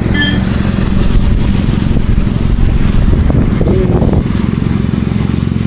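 Motorcycle engine running steadily with road noise from a wet road, dense and low.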